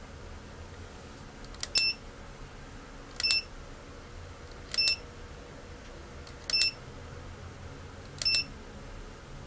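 Car stereo head unit's key beeps: five short, high electronic beeps, each right after a faint button click, spaced about a second and a half apart. The source button is being pressed to cycle the unit's modes.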